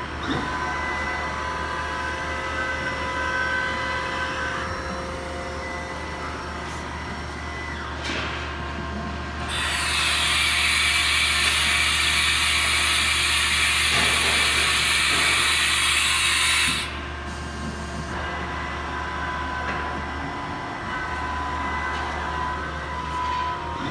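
1998 Haas VF-3 vertical machining center running a program, its axis drives moving the table with a steady hum and whine, the travel smooth. About ten seconds in, a loud hiss starts and cuts off suddenly some seven seconds later.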